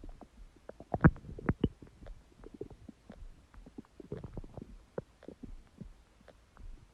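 Empty human stomach growling and gurgling: a string of short bubbling pops, the loudest about a second in, with another cluster of gurgles around four seconds in.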